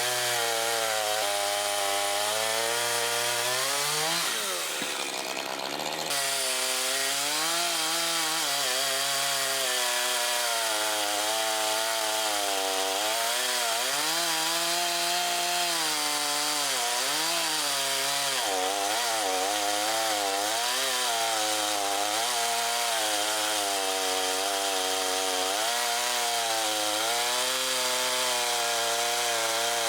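Makita DCS5121 50 cc two-stroke chainsaw engine running at speed, its pitch rising and falling continually as if under changing cutting load, with a short dip in level about four seconds in.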